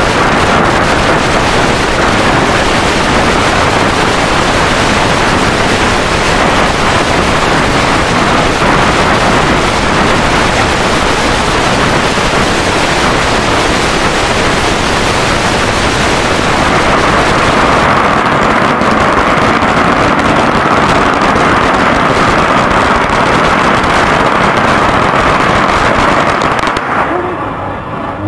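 Loud string of firecrackers going off, a continuous dense crackle of rapid bangs that stops near the end.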